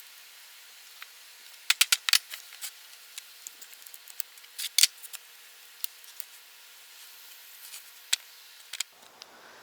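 Scattered sharp clicks and light knocks of hand work, with a quick run of clicks about two seconds in and a louder double click near five seconds, over a faint steady hiss.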